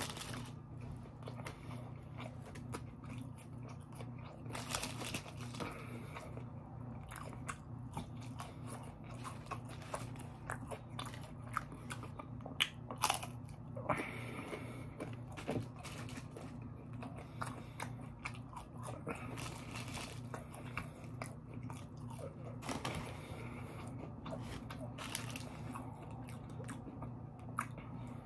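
Chewing and crunching of crispy fried fast food, with scattered bites and crunches, a few louder than the rest, over a steady low hum.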